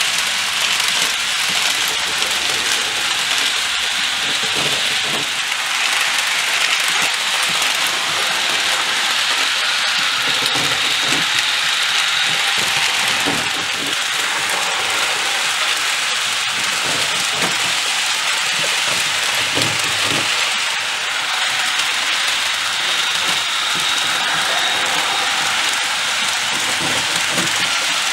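Model CC 40101 electric locomotive with a DCC sound decoder running with its Mistral coaches on the layout: a steady hissing running noise of wheels, motor and onboard locomotive sound, with light knocks here and there.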